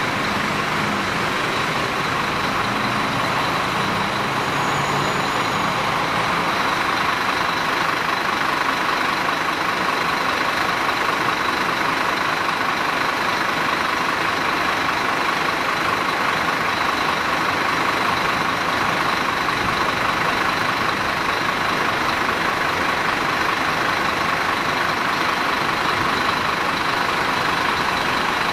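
Steady, unchanging vehicle drone, like a large vehicle idling, with a constant high whine running through it.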